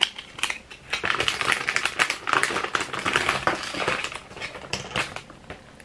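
Rapid clicking and rattling of small plastic pieces and their packaging being handled, busiest from about a second in until near the end.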